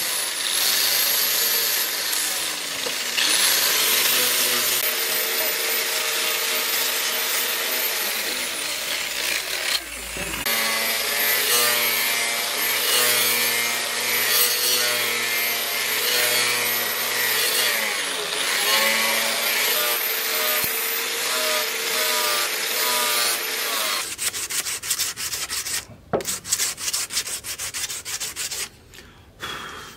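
Electric angle grinder running under load as it works the cleaver, its pitch dipping and recovering twice; with a disc on the steel blade it grinds and throws sparks. About 24 s in the motor stops and quick hand-rubbing strokes on the blade follow.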